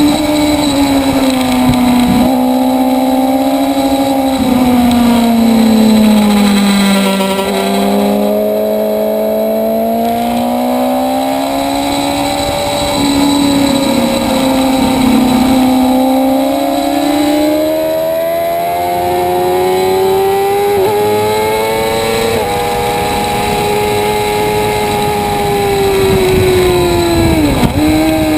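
Motorcycle engine at track speed, its pitch rising and falling as it accelerates and slows through corners. Quick dips in pitch about 21 s in and near the end mark gear changes.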